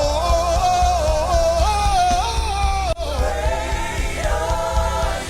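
Live gospel worship music: a single lead voice sings a sliding, held melody over the band's steady bass, with a brief dropout about three seconds in.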